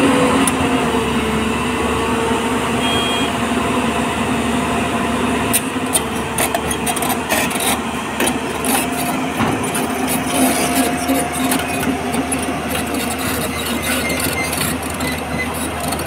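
JCB tracked excavator's diesel engine running steadily under load, a steady hum with overtones. From about five seconds in, scattered short clicks and knocks sound over it.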